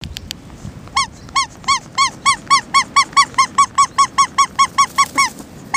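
Squeaky toy squeezed over and over, short rising-and-falling squeaks that speed up from about three to five a second, used as the recall call for pet ferrets.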